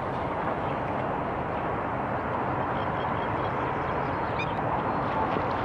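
Steady outdoor background noise with a few faint, short bird calls about three seconds and four and a half seconds in.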